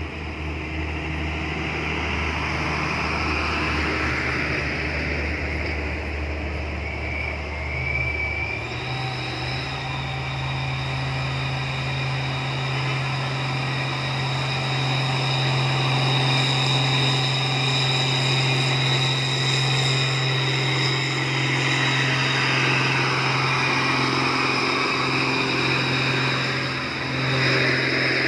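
Heavy truck diesel engine running at steady revs, stepping up to higher revs about eight seconds in and holding there, with a thin high whine joining it. It is a stuck box truck working to get up the grade.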